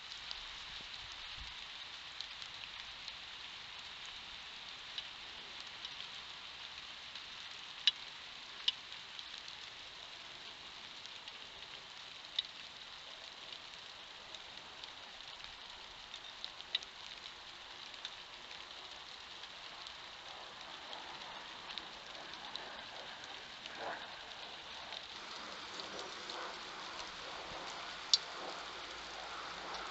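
Steady hiss of a trail camera's microphone, broken by a handful of sharp clicks, with soft rustling in the last third.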